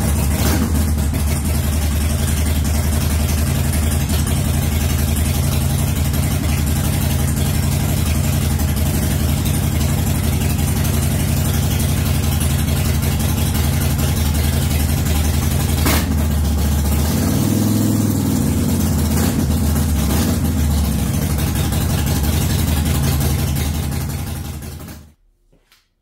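Harley-Davidson Sportster 48's air-cooled 1200 V-twin idling steadily through Vance & Hines Shortshots pipes, on its first run after new exhaust studs were fitted. The revs rise and fall briefly about 17 seconds in, and the engine is switched off about 25 seconds in.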